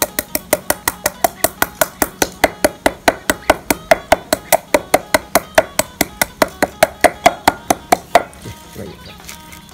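Wooden pestle pounding white peppercorns in an earthenware mortar, a fast, even beat of about five strikes a second that stops about eight seconds in, the peppercorns crushed to a coarse powder.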